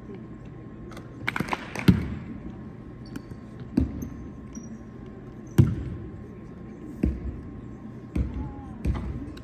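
Basketballs bouncing on a hardwood court: about seven separate thumps, irregular and a second or two apart, echoing in a large empty arena.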